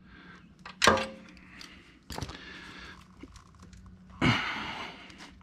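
Wrench work on the belt tensioner bolts: three separate sharp knocks and clinks of the tool on metal, about a second in, two seconds in and near four seconds in, over a faint steady hum.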